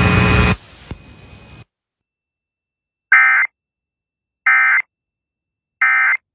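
A steady buzzing hum cuts off about half a second in. Then come three short, identical bursts of the EAS end-of-message digital data signal, a screechy warble sent three times about 1.4 s apart to mark the end of the alert.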